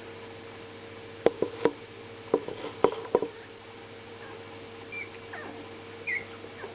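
A series of sharp taps and knocks in the first half, then two brief high squeaks from a puppy about five and six seconds in, over a steady electrical hum.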